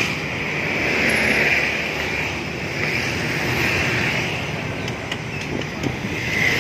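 Road traffic passing by, a continuous rushing noise that swells and fades several times, with a few faint clicks near the end.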